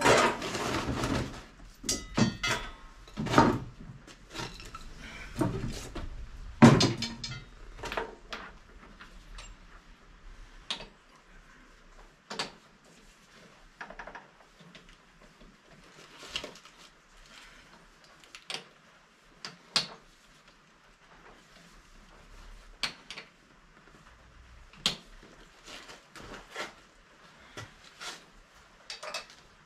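Metal knocks and clinks of tools and shims being handled while a lathe cutting tool is shimmed and clamped in its holder: a flurry of sharp knocks in the first eight seconds or so, then scattered lighter clicks. The lathe is not running.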